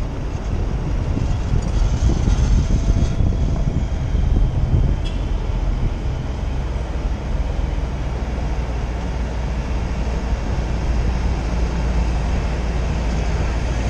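Jeep Wrangler Rubicon driving at low city speed: a steady low drone of engine and tyre noise, picked up by a microphone mounted on the outside of the open Jeep.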